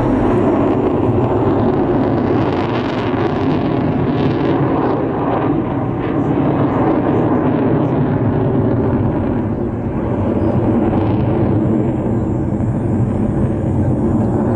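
Fighter jet's engines heard in flight, a loud, steady rushing noise that swells slightly for a few seconds about two seconds in.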